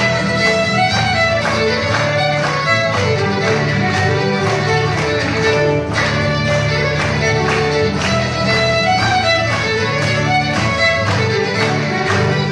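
Two fiddles playing a tune together over two strummed acoustic guitars.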